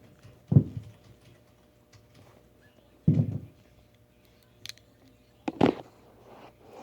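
Three dull thumps about two and a half seconds apart, from chiropractic adjustment thrusts on a patient lying on a treatment table.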